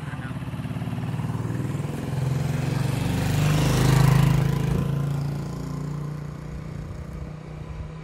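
A motorcycle engine passing by: it grows louder to a peak about four seconds in, then fades away.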